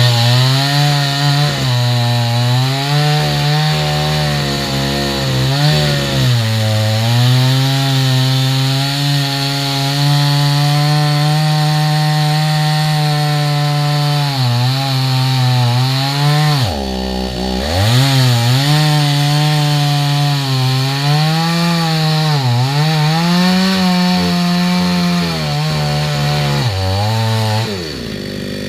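Chainsaw running at high revs, cutting into a coconut palm trunk. Its pitch dips briefly several times as the engine is loaded or the throttle eases. About 17 seconds in it falls to idle for a moment before revving back up, and it drops again near the end.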